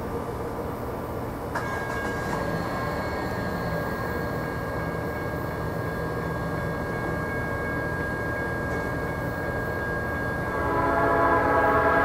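An approaching diesel freight train with a low rumble, a grade-crossing bell starting a steady high ringing about a second and a half in, then near the end the Norfolk Southern SD40 locomotive's multi-tone air horn sounding a held chord, the loudest sound.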